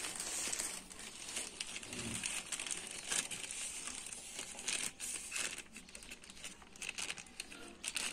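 Plastic courier mailer bag crinkling and rustling irregularly as hands squeeze, crumple and turn it over.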